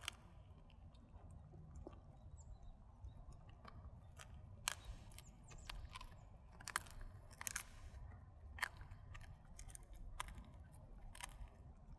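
A dog chewing and crunching dried duck bones: irregular sharp cracks of bone, about one a second, with quieter gnawing between them.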